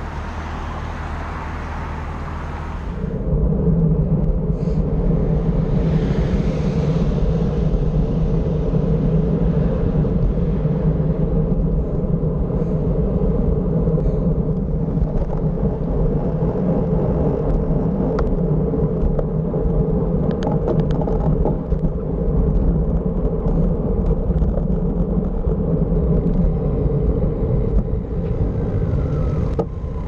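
Steady wind and road noise on a handlebar-mounted camera's microphone as a bicycle rides along a city road, rising sharply about three seconds in when the bike pulls away from a stop. Before that, a low rumble from a bus idling alongside.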